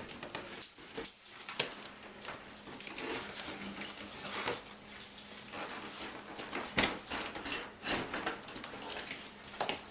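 Dishwasher being slid and worked out of its under-counter opening: irregular scraping with knocks and rattles, the loudest knock about seven seconds in.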